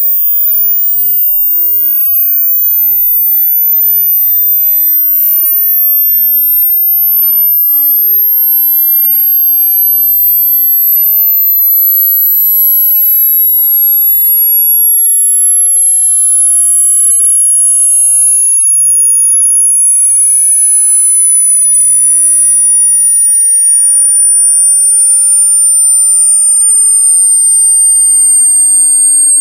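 Electronic composition of pure sine tones in slow overlapping glides. The loudest are very high tones sinking gradually, while a lower tone sweeps down to a deep bass about halfway through and climbs back up as another one falls.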